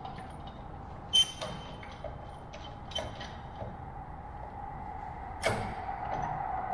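Sharp metallic clicks and taps from clamps being set and tightened on the aircraft's wooden tail frame, loudest about a second in and again near the end, over a steady hum that grows louder near the end.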